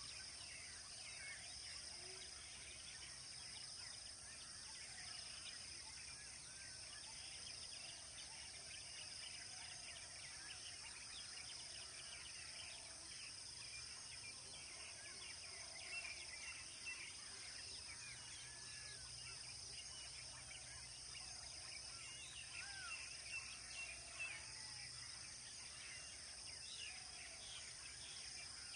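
Faint natural ambience: a steady high-pitched insect drone under many small bird chirps and calls, with a few slightly louder brief calls in the second half.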